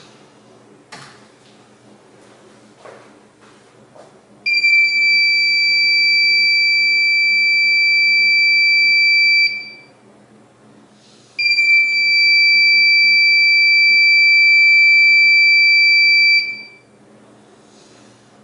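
Small buzzer of an Arduino motion-sensor alarm sounding a loud, steady high-pitched tone twice, each about five seconds long with a short gap between, as the alarm is triggered. A few faint clicks come before the first tone.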